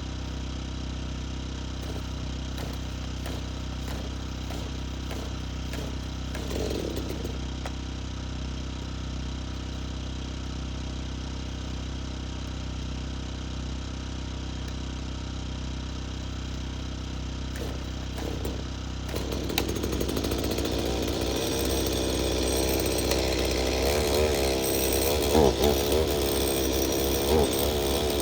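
A gas chainsaw running steadily. About two-thirds of the way through it is revved up louder, its pitch rising and falling, typical of the saw cutting hardwood firewood down to wood-stove length.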